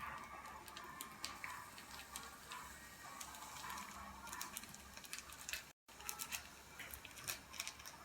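Green pepper sauce cooking in a pot on the fire: faint, irregular small pops and ticks over a low hiss.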